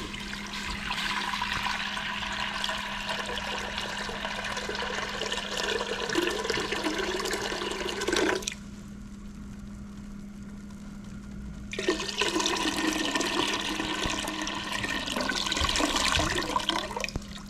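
About a gallon of water pouring into a cooking pot to fill it. It runs for about eight seconds, stops for about three, then runs again for about five seconds.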